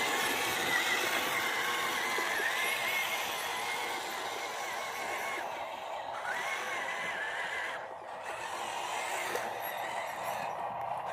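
Small electric motors of a radio-controlled model excavator whining, the pitch wavering up and down, with short breaks about six and eight seconds in.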